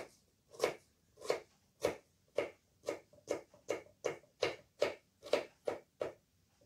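Kitchen knife chopping peeled potatoes into small cubes, each stroke knocking on the cutting board. About fourteen even strokes quicken from about two a second to about three a second, then stop about six seconds in.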